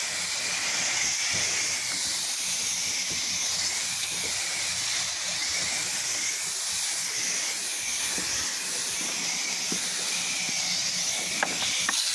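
Pressure washer wand spraying a steady, hissing jet of water through an M5 twist nozzle, applying a downstream soap mix. A couple of faint clicks near the end.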